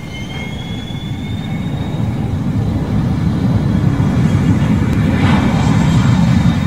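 Airplane engine drone: a low, steady rumble that grows louder over the first few seconds, with a thin whine rising in pitch near the start.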